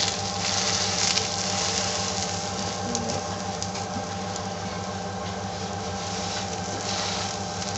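Egg omelette sizzling in oil in a frying pan over a gas flame while a slotted metal spatula presses it down to squeeze out the excess oil, with a few faint scrapes and a steady low hum underneath.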